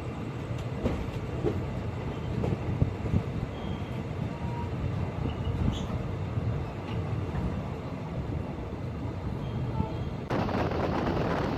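Steady low rumble of a train running on the rails, with scattered clicks and knocks. About ten seconds in it gives way abruptly to a louder rushing noise of wind on the microphone.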